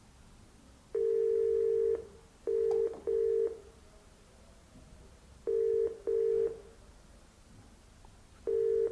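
Telephone ringing tone heard on an outgoing call: a low steady tone, first one longer ring, then repeating double rings (two short pulses, then a pause of about two seconds). The called party has not picked up.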